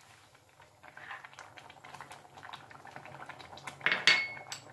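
Thick carrot-and-milk halwa bubbling in a pan on the stove, a steady run of small crackling pops. About four seconds in, a single sharp clink with a short metallic ring.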